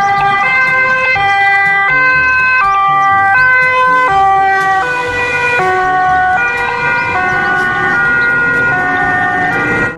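Ambulance siren sounding a two-tone pattern, switching between a high and a low note about every three-quarters of a second.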